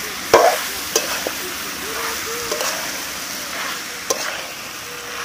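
Chicken and potato pieces sizzling in spiced oil in a large kadai while a metal spatula stirs them, with a few sharp clinks of the spatula against the pan, the loudest just after the start. This is the dry-frying (kosha) stage of a chicken curry, before any water is added.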